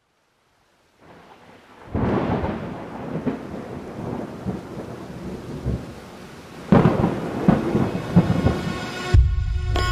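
Rain with rumbling thunder, fading in about a second in and swelling louder twice. A music track with a heavy beat and bell-like tones comes in near the end.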